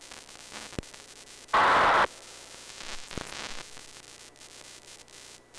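Hiss and crackle of a weakly received analog amateur-television signal, with a loud half-second burst of static about one and a half seconds in and a fainter rush of noise with a click about three seconds in.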